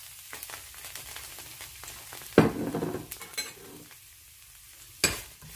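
Chopped garlic sizzling in hot oil in a nonstick frying pan, a steady hiss. A louder clatter comes about two and a half seconds in, and a sharp knock near the end.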